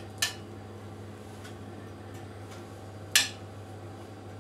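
A metal spoon clinks against a stainless steel pan twice as vegetable filling is scooped out, softly just after the start and louder about three seconds in, over a steady low hum.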